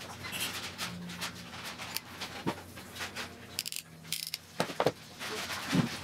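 Handling noise from a stepper motor's stripped wire leads being sorted by hand: scattered light clicks and rustles, with a brief scraping rub a little past the middle and a few sharper clicks near the end.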